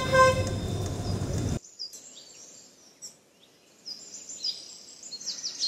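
Street traffic noise with a vehicle horn tooting briefly at the start; it cuts off suddenly about one and a half seconds in, leaving faint bird chirps.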